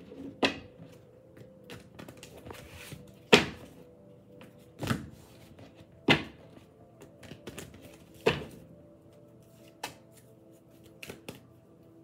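Tarot cards being shuffled by hand: soft rustling of the deck broken by about six sharp slaps of the cards, the loudest about a third of the way in.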